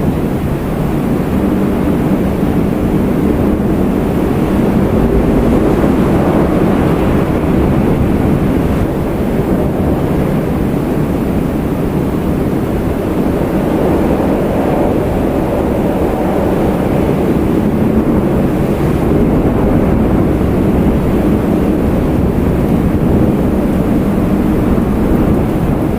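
Wind blowing steadily, a low rushing noise that swells and eases a little over several seconds.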